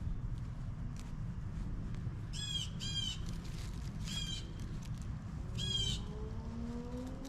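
A bird gives four short, harsh calls in two pairs, over a steady low rumble; near the end a low hum starts and rises in pitch.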